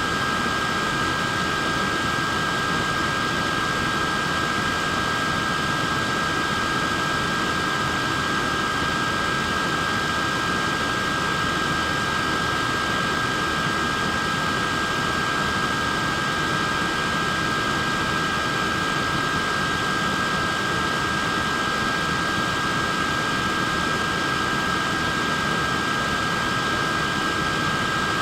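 Neck fan running steadily: a constant rush of air with a steady high whine from its small motor.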